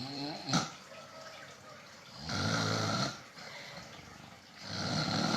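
Snoring: two long, loud snores about two and a half seconds apart, each with a low rattling drone under a rush of breath. Right at the start comes a shorter sound sliding in pitch, ended by a sharp click.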